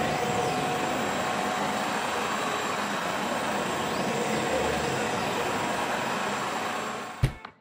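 SYIL CNC vertical milling machine running a table warm-up cycle: steady machine noise as the axis drives move the table back and forth. The noise fades near the end and a sharp hit follows.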